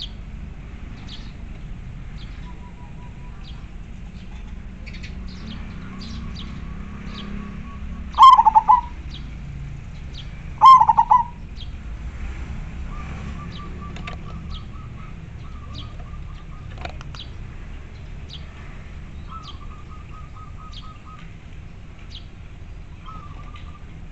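Zebra dove (perkutut) cooing: two loud coos about two and a half seconds apart, each about half a second long, near the middle. Fainter rapid stuttering notes at a similar pitch follow several times in the second half, over short high chirps scattered throughout.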